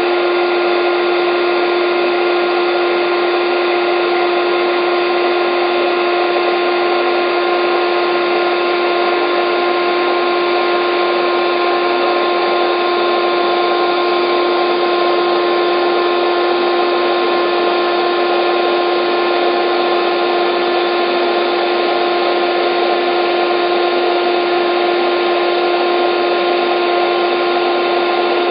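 Electric air bed pump running steadily: a constant rush of air over an unchanging motor hum.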